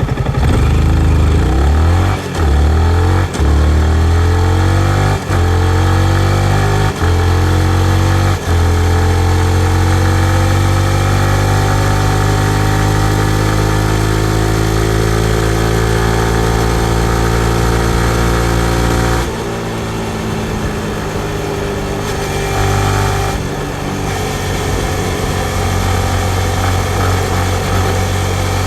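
2019 Yamaha MT-15's 155 cc single-cylinder engine accelerating hard through the gears. The note climbs and breaks off briefly five times in the first eight seconds or so, then makes one long rising pull. About two-thirds of the way through the throttle closes and the engine drops to a lower, uneven note.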